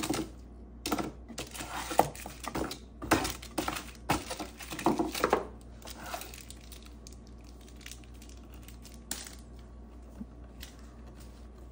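Rustling and crinkling of small wrapped packets and paper, with light clicks and knocks, as a toddler's hand rummages through a kitchen drawer. The handling dies down about halfway through.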